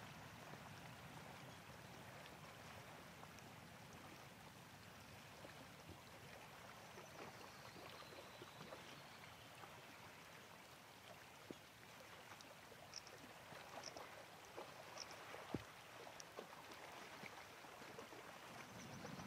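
Near silence: a faint steady wash of sea water lapping on a stony shore, with a few faint ticks in the second half.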